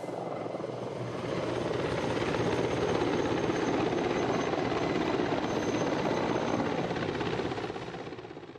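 Mil Mi-24 (Mi-35) helicopter with its two TV3-117 turboshaft engines running and its rotor turning. The sound holds steady, then fades away near the end.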